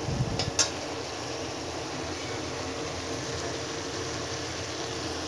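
A metal spatula knocks and scrapes against a metal kadai a few times in the first half second, then a steady low hiss with a faint hum carries on.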